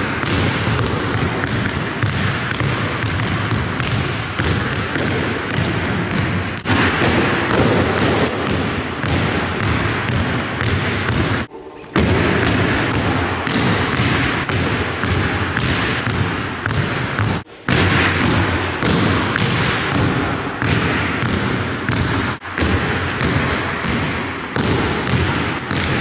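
Several basketballs being dribbled at once on a gym floor during a ball-handling drill: a dense, continuous run of bounces, broken by a few sudden short cuts.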